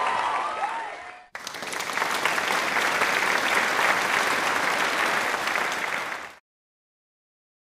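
The tail of a music track fades out, then about five seconds of steady applause, many hands clapping, which stops abruptly.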